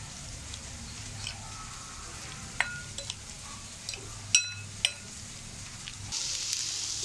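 Metal spoon stirring chicken in a wet spice marinade in a glass bowl, with several sharp clinks of spoon against glass; the loudest, about four and a half seconds in, rings briefly. Near the end a frying pan starts sizzling.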